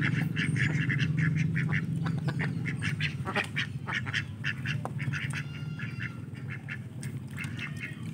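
A flock of domestic ducks quacking in rapid, overlapping chatter, louder in the first half and thinning out later, over a steady low hum.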